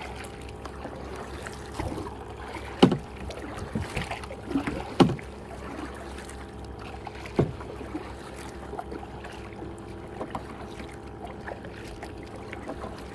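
A kayak being paddled: water sloshing, with a few sharp, irregular knocks against the plastic hull, the loudest about three, five and seven seconds in.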